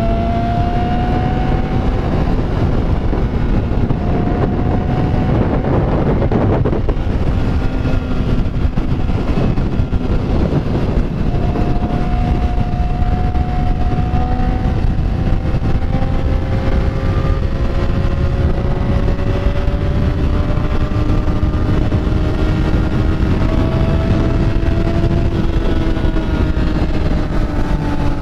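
Motorcycle engine running at speed with heavy wind rush over the helmet microphone; the engine note holds fairly steady, climbs slowly in the second half and drops back near the end.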